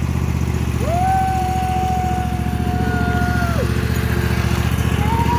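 John Deere tractor's engine running steadily with a fast, even pulse. A long, held high tone rises in about a second in and drops away at about three and a half seconds.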